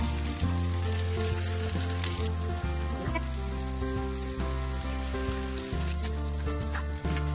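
Diced, flour-coated chicken sizzling as it pan-fries in a frying pan, with a few light clicks as the pieces are turned with a spatula and tongs. Background music with a steady bass line plays throughout.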